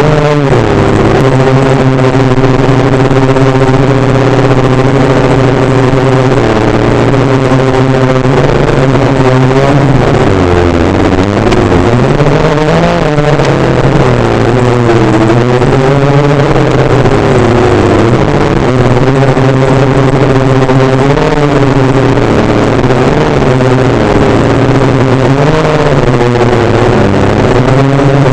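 DJI F450 quadcopter's brushless motors and propellers, a loud steady drone whose pitch dips and swings up and down as the throttle changes, most markedly about ten to sixteen seconds in.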